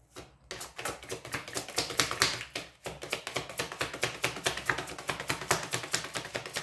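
A deck of tarot cards being shuffled in the hands: a fast run of light papery clicks and flicks, about six to eight a second, with a short pause about three seconds in.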